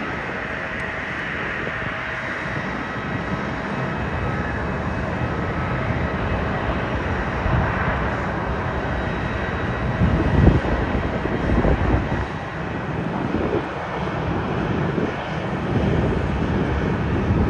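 Jet airliner engines running, a steady rushing noise with a faint whine. Wind gusts buffet the microphone with low rumbling thumps about ten seconds in and again near the end.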